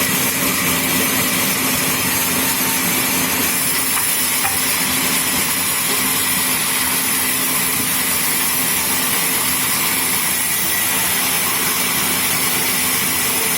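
Sawmill machinery running steadily: a constant loud hiss with a steady low hum and a faint high whine, with no change in load.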